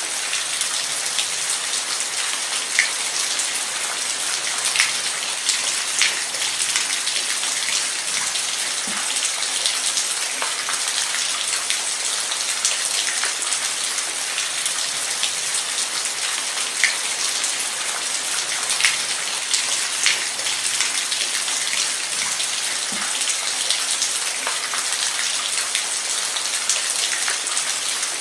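Steady heavy rain falling, a dense hiss with scattered individual drops striking a surface close by.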